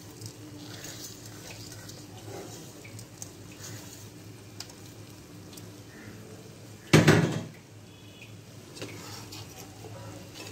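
Faint crackling and ticking of a heap of raw rice starting to heat in oil in a karahi, over a steady low hum. One brief loud clatter about seven seconds in.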